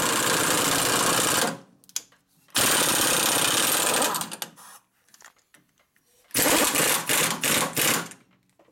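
A power tool running in three bursts of about a second and a half each, with a rapid rattling, pulsing texture, stopping quickly between bursts.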